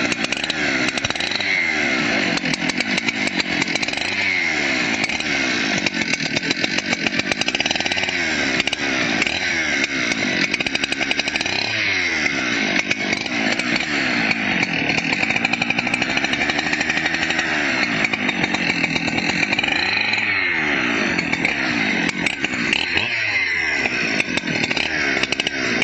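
Husqvarna chainsaw running and being revved up and down over and over, its pitch rising and falling every second or two.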